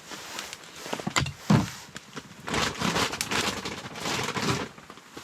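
Firewood being handled: scraping and rustling noises, with a sharp click a little over a second in and a louder knock about a second and a half in.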